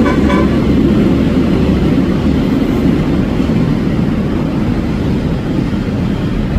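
A musical vehicle horn's tune stops about half a second in. After it, a steady low rumble of a running vehicle or street traffic goes on at an even level.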